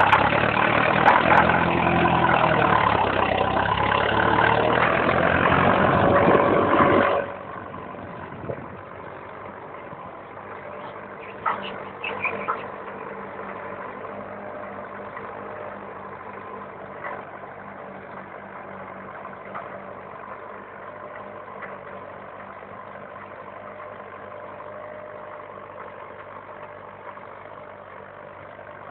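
Farm tractor's diesel engine working under load as it pulls a 13-tine sweep cultivator through the soil. It is loud and close for about seven seconds, then much fainter and steady as the tractor pulls away.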